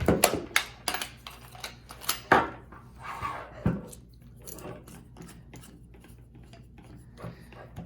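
Hard plastic tool parts being handled: a quick run of clicks, knocks and clatter over the first few seconds, then sparser, quieter clicks and rustling.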